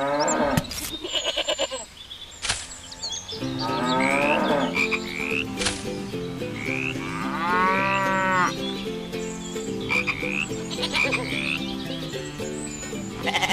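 Music with a stepped low line from about three seconds in, overlaid with animal-like calls: pitched calls that rise and fall and repeated short rising chirps.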